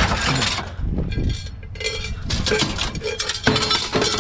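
Scrap metal pieces clanking and clattering together as they are stacked onto a load, a series of sharp metallic knocks, several of them ringing on briefly.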